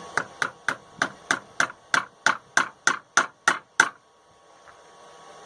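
A hammer driving a handmade nail in with about thirteen quick, evenly spaced blows, roughly three a second, stopping about four seconds in as the nail is set.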